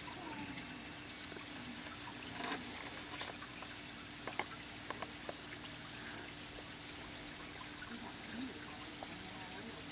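Ruby-throated hummingbirds hovering around hand-held sugar-water feeders, giving short chirps and ticks over a faint steady hiss. The chirps come in a cluster between about two and a half and five and a half seconds in.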